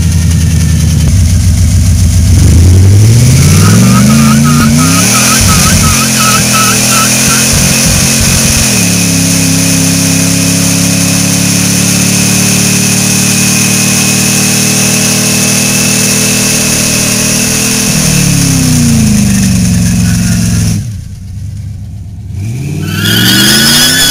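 Built Chevrolet 350 V8 in a 1985 Toyota pickup, revving up about two seconds in and held at high revs through a long burnout, the rear tyres spinning. The revs fall away near the end, there is a brief lull, and the engine revs up again.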